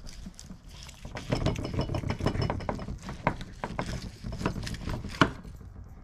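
Carving knife sawing down through a smoked prime rib roast's crusty bark: a rapid crackling and crunching starting about a second in, with a sharp knock near the end.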